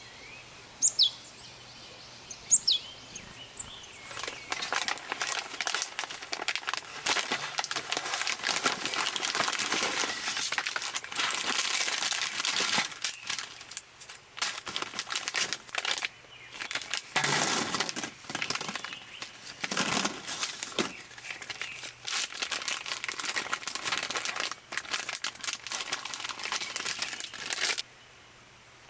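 Two short bird chirps, then from about four seconds in a long stretch of dense crinkling and rustling as packaging is handled, which stops abruptly near the end.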